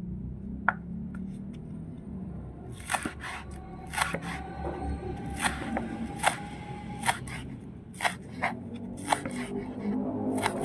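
Kitchen clatter: a run of sharp clicks and scrapes of utensils, about one every half second to a second from about three seconds in, over a low steady hum.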